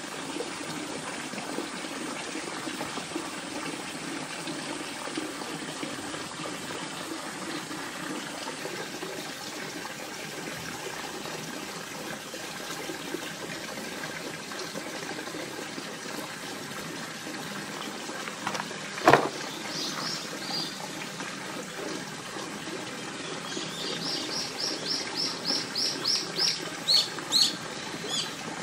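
A steady rushing background with a single sharp knock about two-thirds through. Near the end, a bird gives a rapid run of short high chirps, about four a second.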